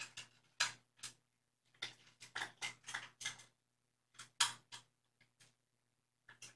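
Irregular short scratchy clicks and taps, some in quick clusters, over a faint steady low hum.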